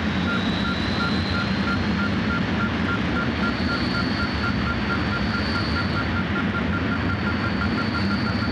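Electronic sound-effect soundtrack: a dense, steady rushing noise with a rapid, even beeping running through it and a thin high whistle that creeps up in pitch over the first few seconds.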